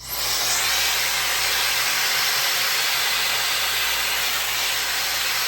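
Rotating hot-air brush with its small brush attachment switched on and blowing: a steady rush of air with a faint high whine from its high-speed motor, starting abruptly.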